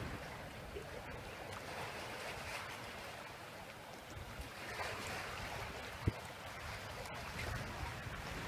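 Faint sea water lapping and washing, with a single short knock about six seconds in.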